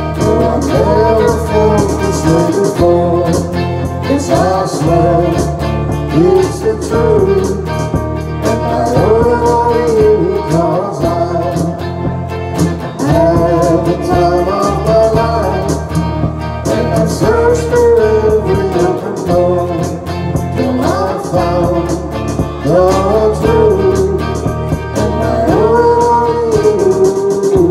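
Small live band playing a pop song on keyboard, guitar and drums, with a melody line gliding up and down over a steady bass.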